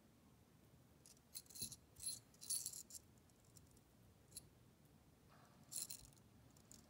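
Small metal fishing tackle handled on the line: a bullet sinker and a metal sleeve clicking and rattling against each other in a few short bursts, mostly between one and three seconds in and again near the end.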